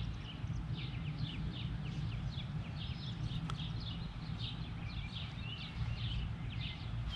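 Small birds chirping and singing, many short quick notes several times a second, over a steady low rumble.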